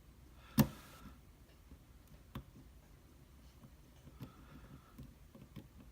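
Faint metallic ticks and clicks of a lock pick working the pins of an Abus D6 dimple euro cylinder, with one sharper click about half a second in and a smaller one a couple of seconds later.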